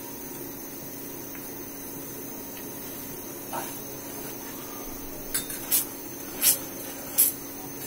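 Wooden spatula scraping and stirring in an aluminium karahi of thickening milk, a few short sharp scrapes in the second half, over a steady hiss.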